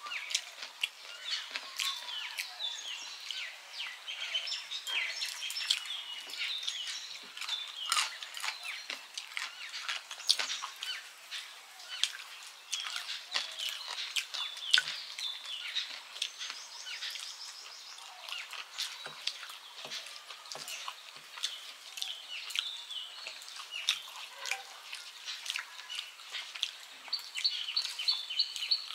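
Birds chirping throughout, over frequent small clicks and smacks of eating by hand: fingers mixing rice on steel plates and chewing.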